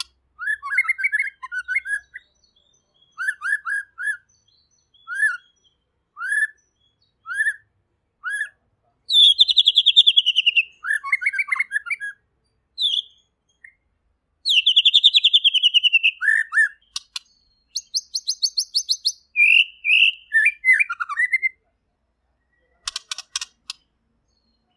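White-rumped shama (murai batu) singing a varied song. It opens with short whistled notes about once a second, then gives two long, fast, high trills and a dense buzzy rattle, and ends with a few sharp clicks.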